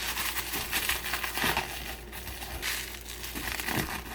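Plastic bubble wrap being crumpled and stuffed by hand, a dense run of crinkling and crackling with many small clicks, busier in the first half.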